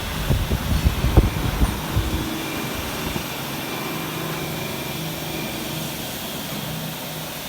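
A large knife grinding machine runs with a steady hum and faint steady tones. Irregular low buffeting lasts for the first two seconds or so, then stops.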